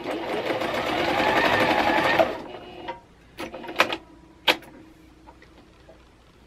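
Singer Quantum CXL computerized sewing machine stitching steadily for about two seconds, then stopping; the machine has just been repaired and is being test-sewn on a fabric scrap. A few sharp clicks follow as the fabric is handled and pulled out from under the presser foot.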